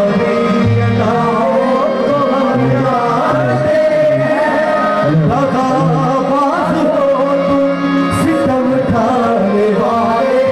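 Live qawwali music: a voice singing a wavering, ornamented melody over held instrumental notes and a steady beat of hand drums.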